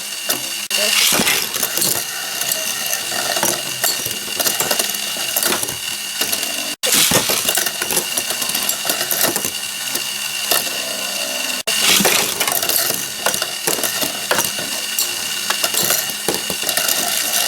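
Metal Beyblade tops spinning in a plastic Tornado Beystadium, a steady high whine with dense rattling and clicking as they scrape and knock around the stadium. The sound breaks off sharply twice, about a third and two thirds of the way through.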